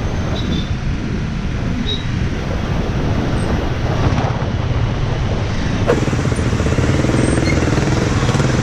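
Motorcycle ridden through city traffic: its engine running under a steady, dense rumble of road and traffic noise.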